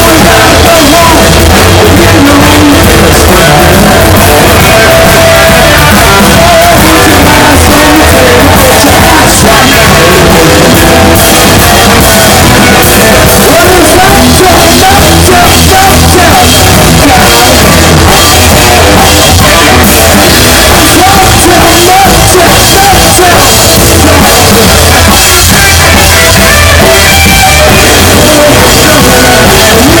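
A live rock band playing loud: electric guitar and drum kit, with the guitarist singing.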